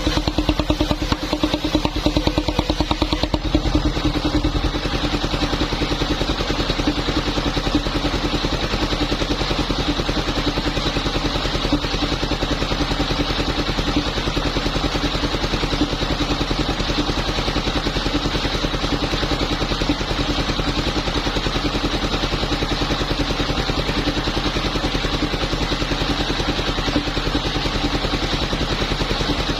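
Engine-powered wood saw running steadily while sawing waru (sea hibiscus) timber, its small engine holding an even note, a little rougher in the first few seconds.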